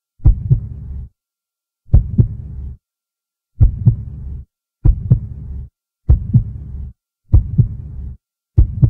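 Heartbeat sound effect: seven deep double thumps (lub-dub), each trailed by a short low rumble, with silence between beats and the beat quickening from about every 1.7 seconds to about every 1.3 seconds.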